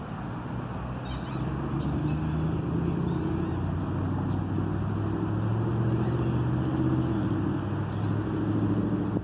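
An engine running steadily with a low hum, growing a little louder over the first few seconds.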